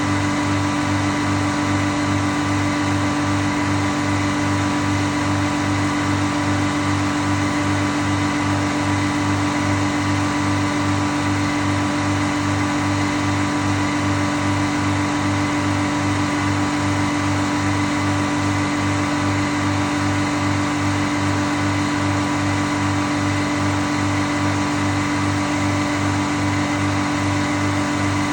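Sawmill running steadily: a constant mechanical drone with a low pulse about twice a second, unchanging throughout.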